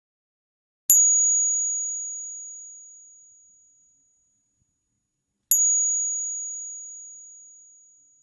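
A 3-ruble coin struck twice, each clink ringing on in one clear high tone that fades away over about three seconds.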